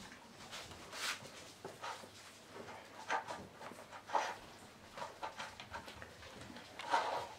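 Drentsche Patrijshond puppies moving about on a pee mat over a tiled floor: scattered scratching, rustling and soft clicks of paws and claws, a little louder about three seconds in, about four seconds in and near the end.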